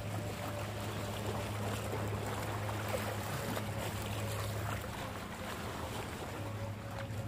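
Sea water sloshing and washing over rocks and concrete breakwater blocks, with a steady low hum underneath.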